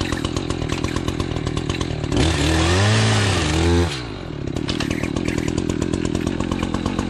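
Chainsaw idling with a fast, even pulse. About two seconds in it is revved up to high speed for under two seconds, the pitch wavering, then it drops back to idle.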